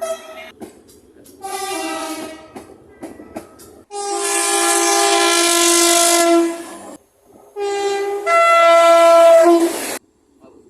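Train horn sounding a chord of several notes in a series of loud blasts. The longest runs about three seconds mid-way, and a final blast cuts off near the end.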